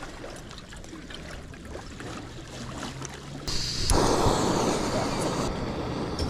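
Wind and lapping lake water. The noise comes in suddenly about halfway through, after a few seconds of faint small clicks and rustles.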